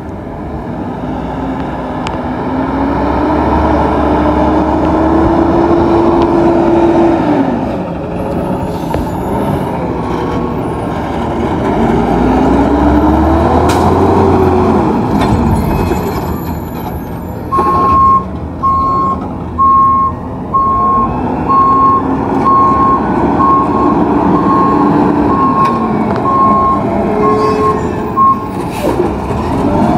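Automated side-loader garbage truck's engine revving up and dropping back several times. From a little past halfway its reversing alarm beeps steadily, about once a second.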